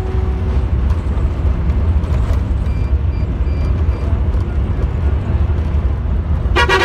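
Heavy bus running at road speed, heard from inside the cabin as a steady low rumble of engine and road noise. A horn note fades out in the first moment, and a loud horn blast starts near the end.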